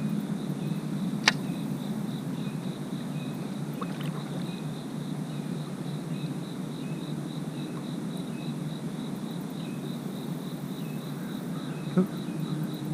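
An insect chirping in a steady, evenly pulsed high trill over a low steady rush of outdoor noise, with a sharp click about a second in.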